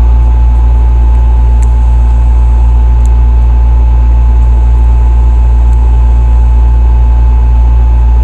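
A loud, steady low hum with a faint steady high whine over it, and a few faint clicks about one and a half, three and five and a half seconds in.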